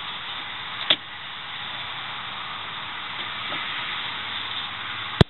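Pliers working at a pressed-on steel retaining washer on a heater control lever, with a sharp metallic click about a second in, over a steady hiss. A second, sharper click comes near the end, where the hiss cuts off.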